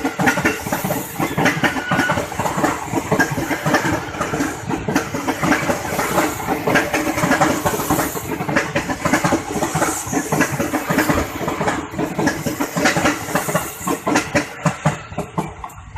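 KRL commuter electric train passing close by, its wheels clattering rapidly and continuously over the rail joints, the noise dropping away right at the end.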